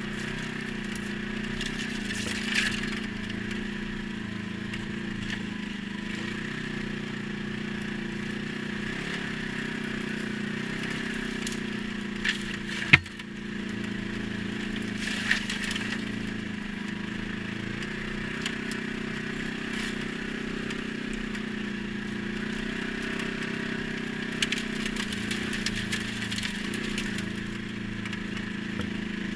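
ATV engine running at a steady, even speed, with scattered clicks and crackles and one sharp knock about halfway through.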